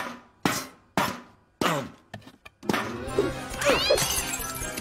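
A bucket stuck on a walking foot clunking on a hard floor: four hollow knocks about half a second apart, each with a short falling ring. Cartoon background music comes in after about two and a half seconds.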